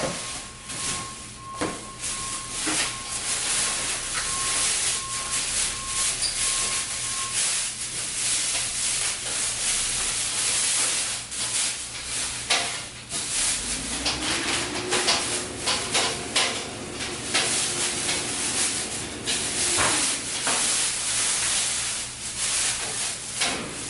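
Plastic wrapping crinkling and rustling as a large appliance is lifted out of its cardboard box and unwrapped, with cardboard scraping and small knocks.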